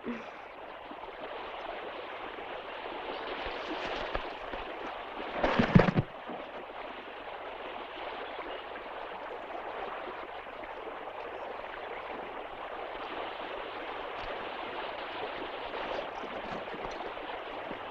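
Steady rush of flowing river water, with one brief louder burst about five and a half seconds in.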